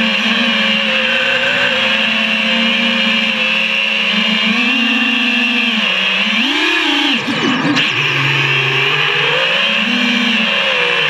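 FPV quadcopter's brushless motors and propellers whining as heard from the onboard camera, the pitch rising and falling with the throttle. About seven seconds in it drops sharply, as if the throttle is chopped, then climbs back.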